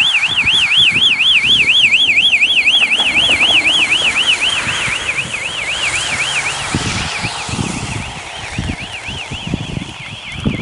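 Warbling siren on a passing rally course car, swinging up and down about four times a second, loudest as the car goes by and then fading as it drives away. The car's engine and tyres on the wet road run underneath.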